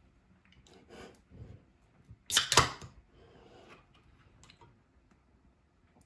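Aluminium beer can of Sapporo Black Label being picked up and its pull-tab cracked open with a sharp snap about two and a half seconds in, followed by a short hiss. A couple of light knocks from handling the can come before it.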